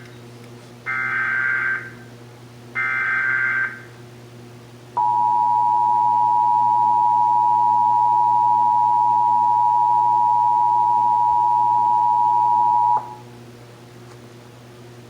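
Emergency Alert System SAME header: the last two of three roughly one-second bursts of warbling digital data tones, then after about a second's pause the EAS two-tone attention signal (853 and 960 Hz together) sounding steadily for about eight seconds and cutting off sharply, over a faint low hum. It marks the start of a required monthly test of the alert system.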